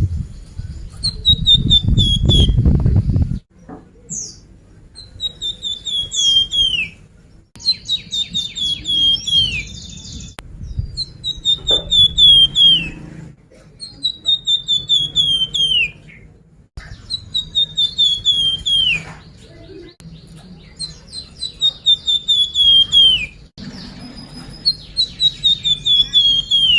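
Lure recording of the songbird known in Indonesia as 'flamboyan' singing: a fast string of chirps that slides down in pitch, repeated about every two seconds. A low rumble runs under the first few seconds.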